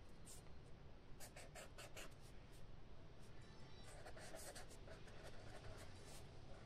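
Handwriting on paper: a writing tip scratching out short strokes in two runs, faint.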